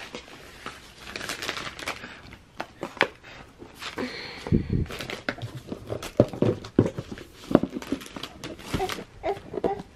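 MacBook Air packaging being handled: the cardboard box, its insert tray and plastic wrap crinkling and rustling, with a string of sharp clicks and dull knocks.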